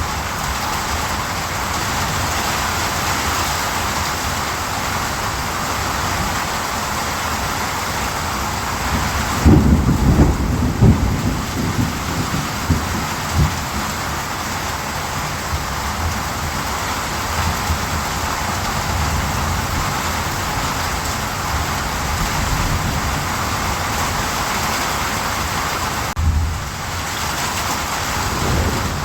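Steady heavy rain, with a low rumble of thunder starting about ten seconds in and lasting a few seconds, and a shorter low rumble near the end.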